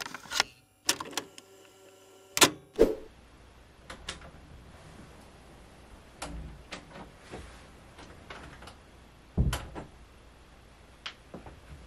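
A few sharp clicks near the start, then a person coming in through a door and moving about a small room: scattered knocks and footfalls, with one heavier thump about nine and a half seconds in.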